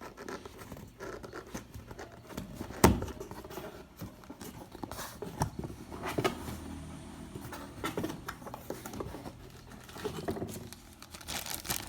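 A cardboard box being opened and its contents handled: irregular rustling, scraping and light clicks of cardboard and packaging, with one sharp knock about three seconds in.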